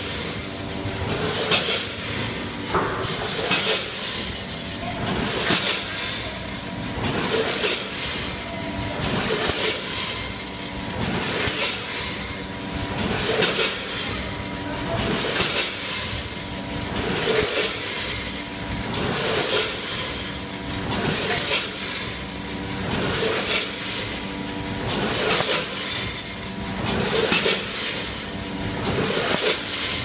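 Multihead weigher running with popcorn kernels: a rush of kernels rattling and clinking through the steel hoppers about every two seconds, over a steady machine hum.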